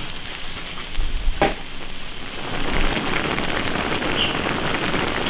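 Diced pork fat bubbling and sizzling in water in an iron wok, a steady crackling hiss that grows louder after a couple of seconds, with a single click about a second and a half in. The fat is rendering into lard as the water cooks off.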